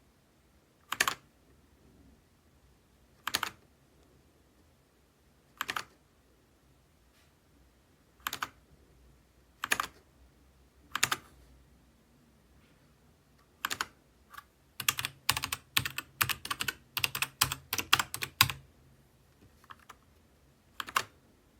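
Dierya DK61se 60% mechanical keyboard with red linear switches being typed on: single keystrokes spaced a second or two apart, then a quick run of rapid typing lasting about four seconds, then a couple more single presses near the end.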